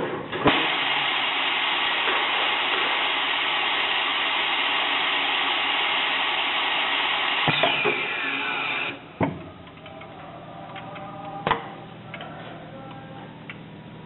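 Hot riveting (heat staking) machine working: a loud, steady rushing noise that starts about half a second in and cuts off suddenly about nine seconds in, with a click and a falling whine shortly before it stops, then a few quieter knocks over a low machine hum.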